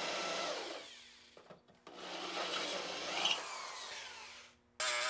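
Electric drill boring larger holes through spot-welded sheet steel to drill out the welds. It winds down with a falling pitch about a second in, then drills again and winds down near the end. Just before the end a loud, steady grinder cuts in abruptly.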